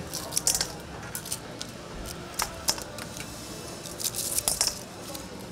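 Kitchen scissors snipping through crispy fried chicken held in metal tongs, with small clicks as the cut pieces drop into a stainless steel bowl. The snips come in several quick clusters: at the start, around the middle and again about four seconds in.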